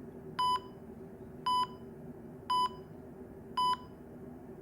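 Short electronic beeps, one high tone about once a second, four in a row, over a faint steady low hum.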